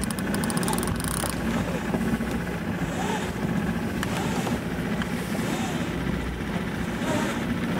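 A sailboat's motor running steadily at low speed. In the first second comes a burst of rapid clicking as a sail line is winched in.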